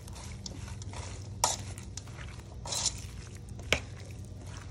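Chopped shrimp, cucumber, onion, tomato and cilantro being stirred in a stainless steel bowl: soft wet rustling with two sharp clinks, about a second and a half and nearly four seconds in.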